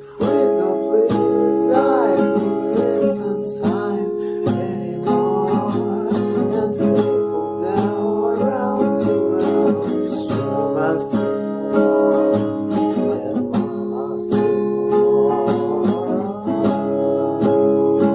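Acoustic guitar strumming in a band arrangement, with a melody line of gliding, bending notes over it. The music comes in just after a brief dip at the very start.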